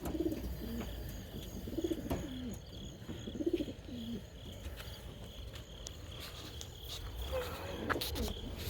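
Crated racing pigeons cooing: a string of short, low, bending coos every second or so.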